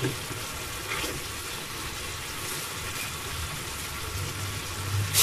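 Tomato and monkfish sauce simmering in a steel pan on the hob, a steady sizzle with a faint tick about a second in.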